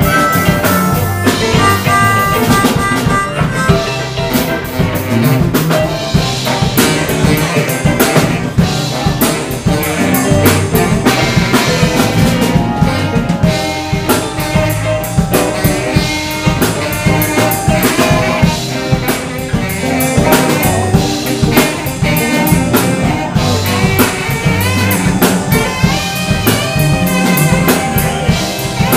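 Live blues band playing an instrumental passage: electric guitar, bass and drum kit keeping a steady beat under a saxophone lead, with harmonica wails in the first few seconds.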